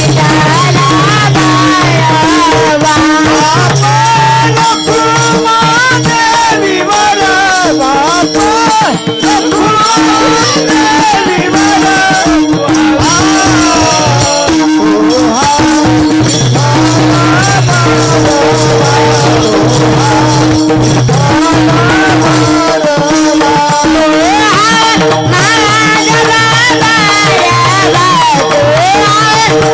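Marathi devotional kirtan music: a steady drone under a wavering, ornamented melody line, with continuous rattling hand percussion keeping the beat.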